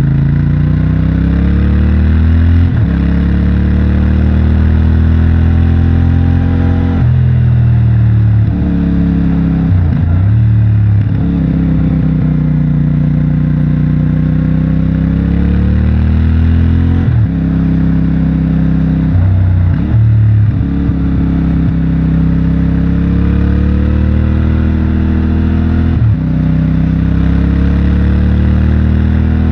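CFMOTO 450MT's 449 cc parallel-twin engine through its stock exhaust, under way on a winding road. The engine note repeatedly climbs in pitch as the bike accelerates, then drops sharply several times as the throttle comes off or the gears change.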